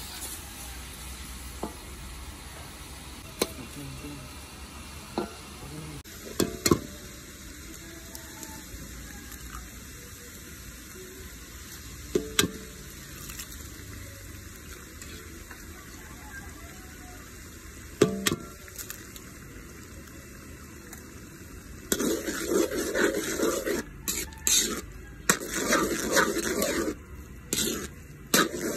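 Pork frying in a wok with a steady sizzle, and a few sharp taps of a metal spatula against the pan. About two thirds of the way through, the spatula starts scraping and stirring quickly, mixing egg into the pork.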